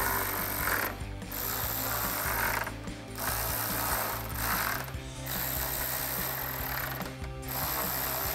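Cordless electric ratchet with a 10 mm socket running bolts down in repeated runs of one to two seconds, about five in a row with brief pauses between them.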